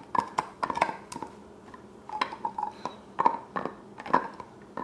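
A bulldog-mix dog gnawing a hard nylon chew toy (Bullymake Pawpeller): irregular sharp clicks and scrapes of teeth on the nylon, a few a second.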